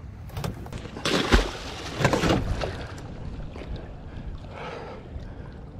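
A large catfish released over the side of a boat: a thump and splashing about a second in, a second splash about a second later, then water sloshing.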